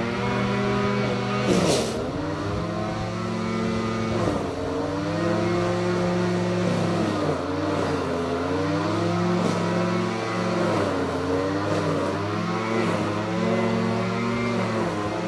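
An engine running, its pitch dipping and recovering every second or two, with a brief sharp noise about two seconds in.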